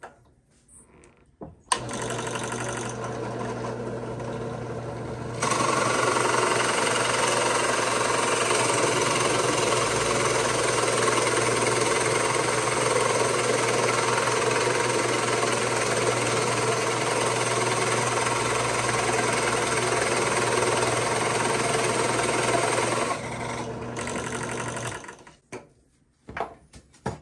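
Benchtop drill press switched on with a click about two seconds in, its motor running with a steady hum. A few seconds later a 1 5/8-inch Forstner bit with a nicked cutting edge starts boring into red oak, and a loud, even cutting noise rises over the motor. The cutting stops near the end, the press runs free for a moment, and it is switched off.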